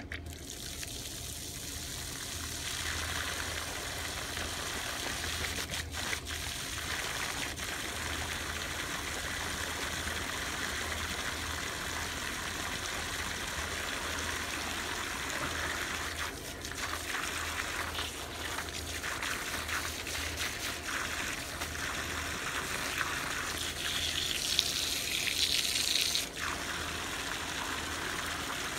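Water from a hose rushing through a tractor oil cooler and spraying out of its far end, splashing into a puddle: a steady flushing rush that builds in the first couple of seconds and grows louder for a couple of seconds near the end.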